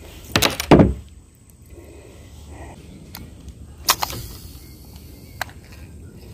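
Heavy thumps and knocks as a largemouth bass is handled and unhooked against the boat, loudest about half a second in. About four seconds in there is a second sharp knock with a short splash-like hiss, as the fish goes back over the side. A single sharp click comes near the end.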